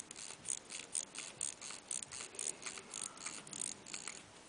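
Small metallic clicks from a 1905 Vacheron & Constantin pocket-watch movement, coming quickly and fairly evenly at about five a second.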